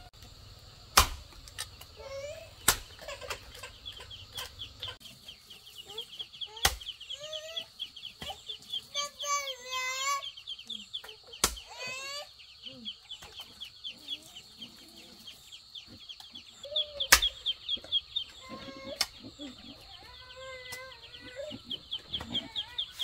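Hand hoe chopping into wet clay soil: a handful of sharp thuds a few seconds apart. Chickens cluck in short calls, over a fast, steady high chirping.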